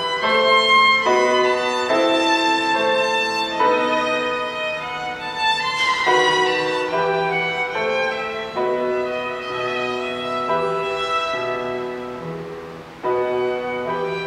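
Violin playing a slow melody in long held notes, with piano accompaniment underneath.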